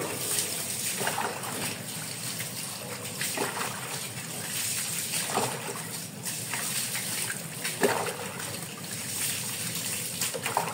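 Water poured from a plastic scoop over a dog's wet coat while rinsing it, trickling and splashing onto a tiled floor, with about five louder splashes as scoopfuls land.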